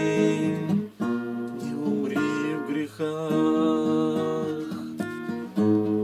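Nylon-string classical guitar playing the closing instrumental bars of a song: plucked notes and chords that ring out, with short breaks about one and three seconds in.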